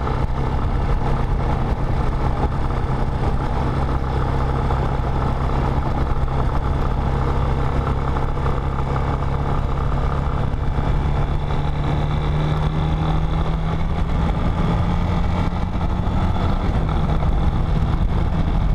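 Motorcycle engine running at a steady cruising speed on a dirt road. Its pitch rises a little about two-thirds of the way through, then eases back.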